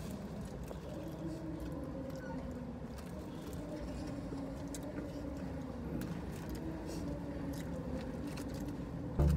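Quiet eating sounds: fried chicken being chewed and picked apart by hand, with small clicks and crinkles, over a low steady hum.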